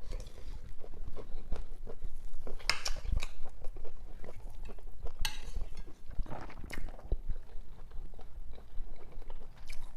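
Close-up eating sounds: chewing a mouthful of food, with scattered light clicks of cutlery against a plate or bowl.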